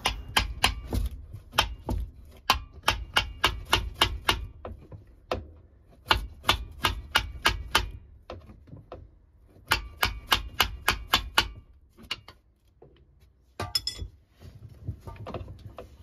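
Sharp metal clicks and knocks from a spanner working on the fittings of a Yanmar 2QM15 marine diesel, coming in three quick runs of about four a second with pauses between.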